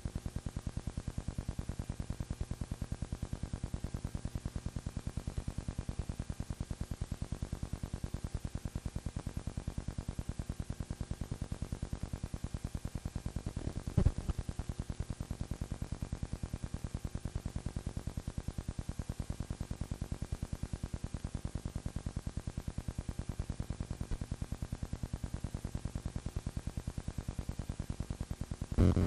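Steady, fast, even mechanical clatter, typical of a film projector running, with a sharp louder knock about halfway through and another at the end.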